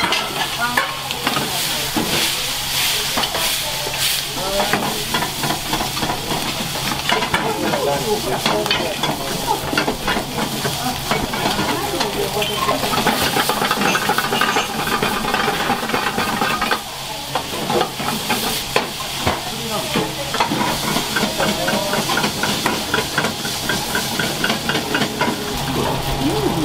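Food sizzling in a hot frying pan, with frequent sharp clinks and scrapes of metal utensils against the pan.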